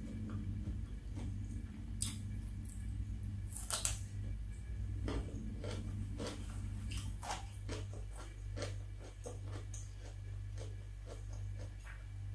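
Close-miked chewing of crunchy food, with irregular crisp crunches, a couple of louder ones about two and four seconds in, over a steady low hum.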